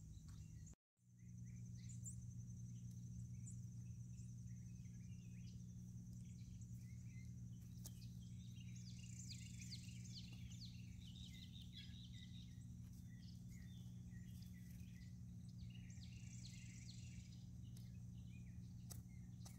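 Faint outdoor background: a steady low hum with a thin, steady high tone, and bird chirps in two short bouts, about halfway through and again near the end. The sound cuts out completely for a moment about a second in.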